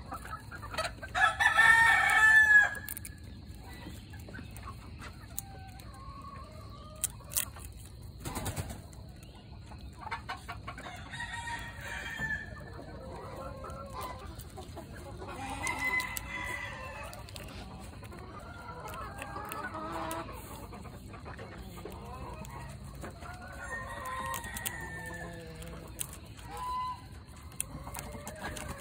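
Chickens clucking with a rooster crowing; the loudest crow comes about a second in, and quieter calls recur every few seconds. A few faint clicks are heard between them.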